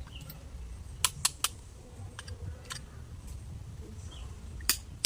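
Hand tool tapping stone in sharp, irregular clicks: three in quick succession about a second in, a few scattered ones after, and the loudest near the end, over a low rumble.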